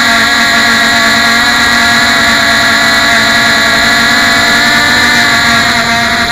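Three small Cox RR-1 glow engines on a model sailplane running together with a steady high-pitched buzz, set rich and somewhat slobbering. Their pitch wavers briefly near the end.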